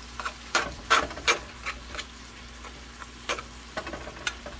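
A utensil scraping and knocking against a cast iron skillet as it breaks up raw ground chicken among butternut squash cubes. The clicks and scrapes come irregularly: several in the first second and a half, then a few more spread out.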